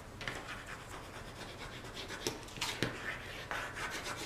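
Fine metal tip of an Art Glitter glue bottle scratching and rubbing across cardstock as a line of glue is laid down. There are a few light clicks a little past the middle.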